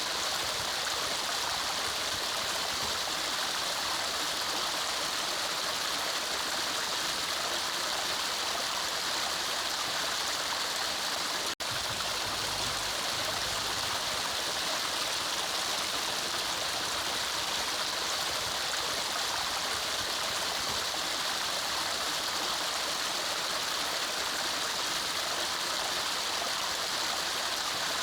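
Forest mountain stream running steadily, an even rush of water, with a momentary dropout about twelve seconds in.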